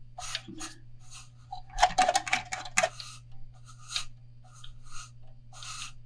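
Short scratchy rubbing and rustling sounds of hands working thread on a fishing rod blank, with a quick run of them about two seconds in.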